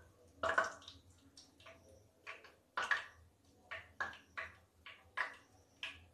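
Cooking oil heating in a nonstick frying pan on a gas stove, giving scattered short crackles and pops, about ten of them at irregular intervals, as it comes up to frying temperature.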